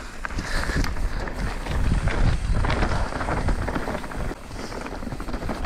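Mountain bike ridden fast down a dry, leaf-covered dirt trail: knobby tyres crunching over leaves and dirt, with many small rattling clicks from the bike and wind rumbling over the microphone. It is loudest about two seconds in.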